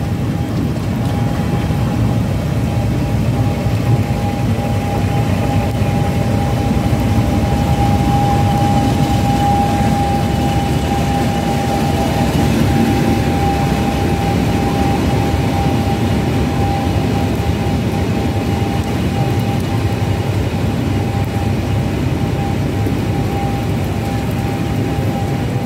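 English Electric Class 50 diesel locomotive 50015 running as it draws its coaches along the platform: a steady low diesel rumble, then the coaches rolling past. A constant high-pitched whine sounds over it throughout.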